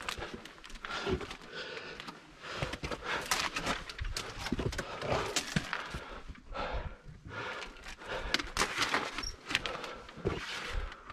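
A climber breathing hard and panting while scrambling up rock, with scattered knocks, scrapes and clicks of boots and hands on the stone.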